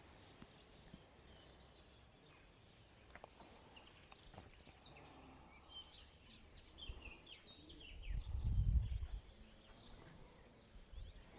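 Faint scattered bird chirps in the open air, with a brief low rumble about eight seconds in.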